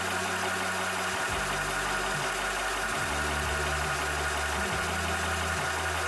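Cobra high-pressure PCP air compressor running steadily while pumping, a constant mechanical hum with low tones that step up and down in pitch every second or so.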